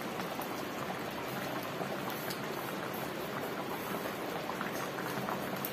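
Shukto, a Bengali mixed-vegetable curry, simmering in an aluminium pot: a steady bubbling hiss with faint pops here and there.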